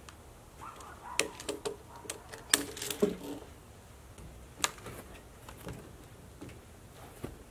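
Rapid clicks and clatter, densest in the first half, with a single sharper knock a little past halfway: ratchet tie-down straps and a wooden slab being handled on a trailer.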